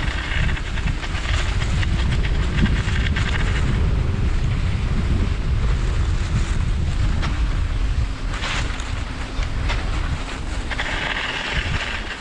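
Wind buffeting the microphone while skiing along cross-country tracks, a steady low rumble over the hiss of skis gliding on snow; it eases off near the end as the pace slows.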